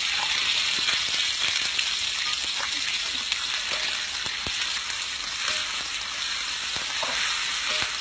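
Food frying, a steady sizzle with many small scattered pops.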